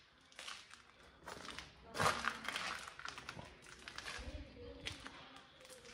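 Footsteps crunching and scuffing on grit and debris over a concrete floor, in irregular steps, the loudest about two seconds in.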